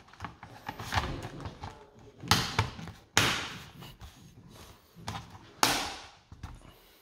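A series of knocks and brief scraping rustles as a hand handles a wall-mounted Fermax intercom handset, the two loudest about three seconds and five and a half seconds in.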